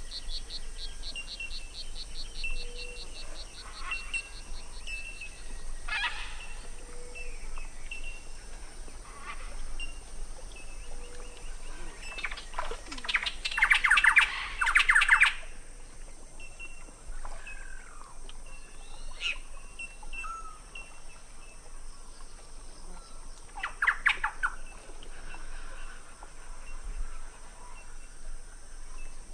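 Birds calling and chirping, with loud, harsh, rasping calls about halfway through and again near the end, over a steady high hiss.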